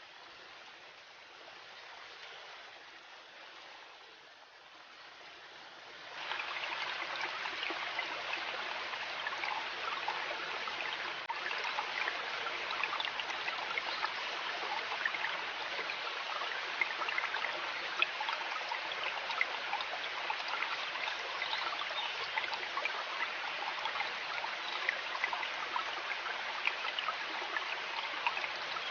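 River water running and babbling over stones, a steady rushing with small splashes. It is fainter at first and turns noticeably louder about six seconds in.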